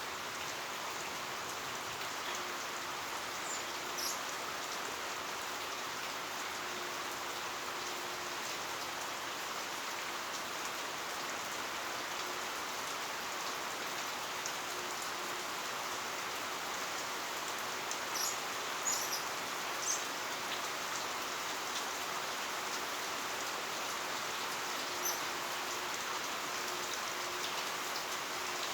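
Heavy rain falling steadily, an even hiss of drops on surfaces. A few brief high-pitched ticks stand out over it, mostly about two-thirds of the way in.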